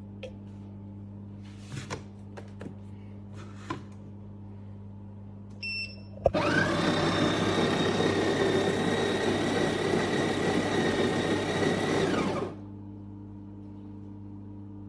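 A short electronic beep, then the Café Affetto automatic espresso machine's built-in coffee grinder runs for about six seconds, a loud whirring with a steady high whine, before stopping. A low steady electrical hum and a few light clicks sit underneath.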